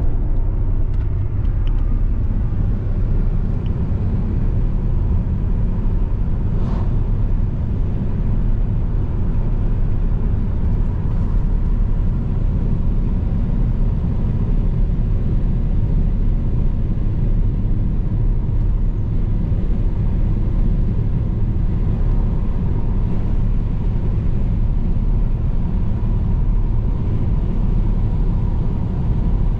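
A car driving along, with steady low road and engine rumble.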